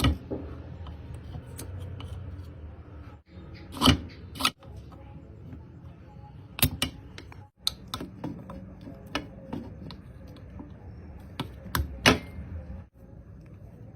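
Irregular sharp clicks and clacks of hand tools and parts being handled, over a steady low hum. The sound cuts out abruptly several times.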